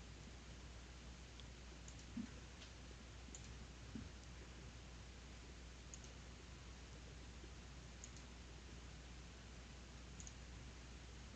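Near silence: a low steady room hum, with a few faint, scattered computer mouse clicks.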